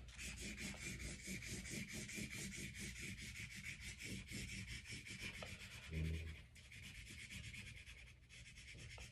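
Purple crayon scribbling on paper taped to a wall: quick back-and-forth scraping strokes, several a second. A single low thump about six seconds in.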